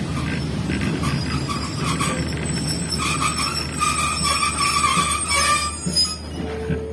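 Passenger train rolling slowly with a steady low rumble, then squealing as it brakes to a stop. The squeal comes in at two pitches about three seconds in and cuts off with a short jolt near the end as the train halts.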